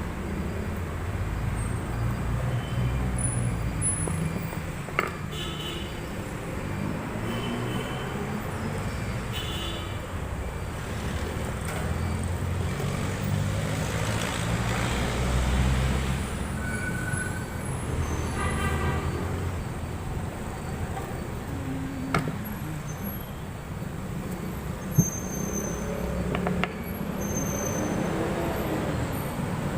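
Road traffic with a steady low engine rumble, rising and falling as vehicles pass. A few sharp clicks stand out, the loudest about 25 seconds in.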